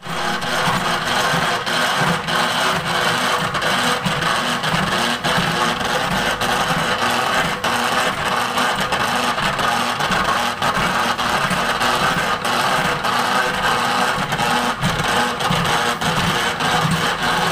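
Sukro peanut-making machine running: a steady mechanical whir with a constant stream of small irregular clicks.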